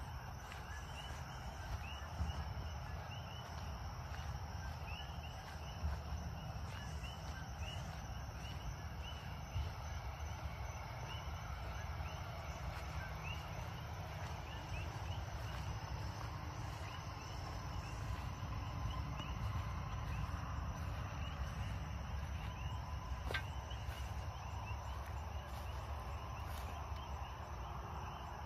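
Many short, high animal chirps repeating throughout over a steady low rumble, with one sharp click near the end.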